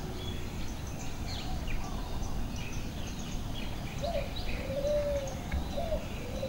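Outdoor birdsong: scattered short, high chirps from small birds throughout, and in the second half a lower call of short rising notes with one held note. A steady low rumble runs underneath.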